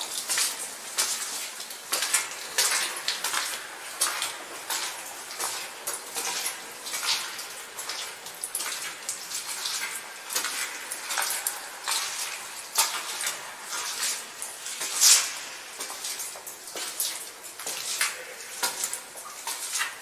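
Footsteps crunching and scraping over small loose rocks on a cave floor, echoing off the rock walls, in an uneven run of steps.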